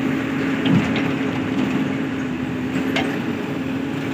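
Case 851FX backhoe loader's diesel engine running steadily while it dumps a bucket of soil into a metal tractor trolley. There is a thud under a second in and a sharp knock about three seconds in.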